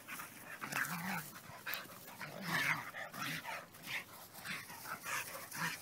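Two dogs play-wrestling, giving a string of short rough growls and yips, about two a second.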